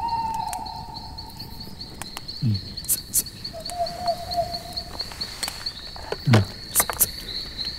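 Crickets chirping steadily in a night-time outdoor ambience, with scattered sharp clicks and twice a short low sound that drops in pitch.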